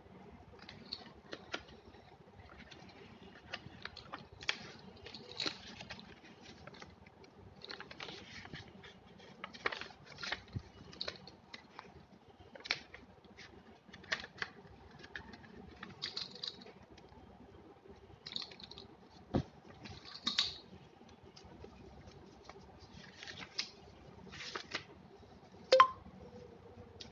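Small plastic and paper school items being handled: scattered light clicks, taps and rustles, with one sharper click near the end.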